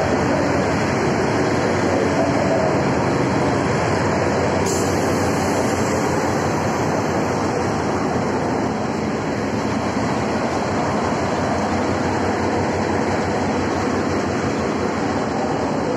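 Hitachi diesel-electric locomotive running close by, a loud steady engine rumble. A higher hiss joins about five seconds in.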